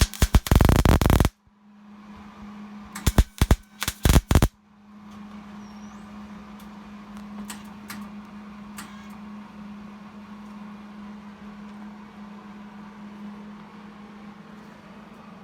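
Welding arc crackling in two short bursts, the first about a second long and the second about a second and a half, like tack welds. After them a steady low hum runs on, with a few faint clicks.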